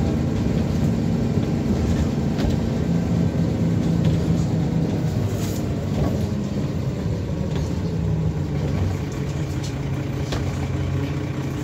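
Dennis Trident double-decker bus's diesel engine running under way, heard from the upper deck, with a few light rattles from the cabin. The engine note drops in pitch about halfway through.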